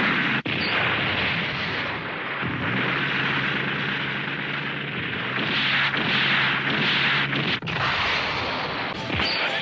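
Anime sound effects of mecha heavy-gun fire and explosions: a continuous dense din of shots and blasts, broken twice by a very short drop.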